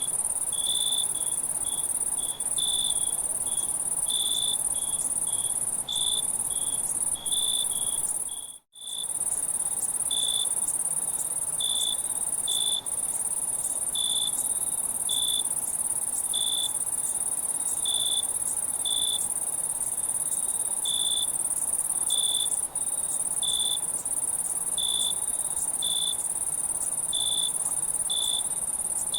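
Crickets chirping at night: a continuous high-pitched insect trill, with a cricket's short, evenly spaced chirps, about one a second, over it. The sound cuts out briefly about nine seconds in.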